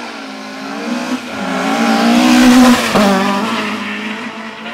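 Mk2 Ford Escort rally car driven flat out through a bend and passing close by, its engine revving up to its loudest about two and a half seconds in. The note breaks and drops sharply about three seconds in as the car goes past and pulls away.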